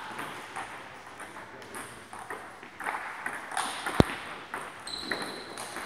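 Table tennis balls clicking off bats and tables in irregular rallies, several tables in play at once, with one sharp, loud crack about four seconds in.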